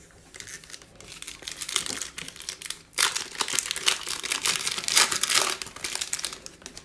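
Plastic wrapper of a Mosaic basketball trading card pack crinkling and tearing as it is ripped open and peeled off the cards by hand, getting louder about halfway through.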